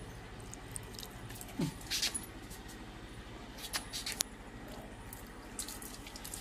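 Handling noises while a dog's maggot wound is flushed: a few short scratchy clicks and hisses in small clusters, over a low steady hum.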